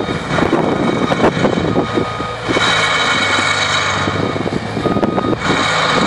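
Diesel engine of a forestry mulcher running hard under load as it shreds autumn-olive shrubs, with dense cracking of branches and stems being chewed up. The machine swells louder and brighter for a few seconds midway, and a few short beeps sound.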